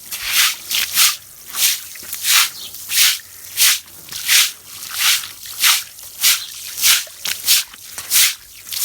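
A stiff brush scrubbing a wet hand-woven rug: regular swishing strokes, about one and a half a second.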